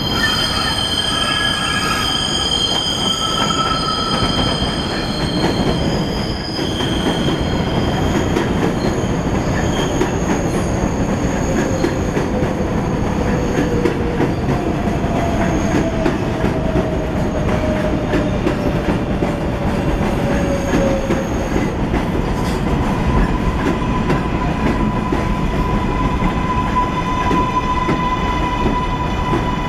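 New York City Subway 7 train (R188 cars) coming round a curve on elevated track. The wheels squeal in several high tones for the first few seconds, then the cars rumble and clatter past close by. A slowly falling whine comes midway, and a steady hum near the end.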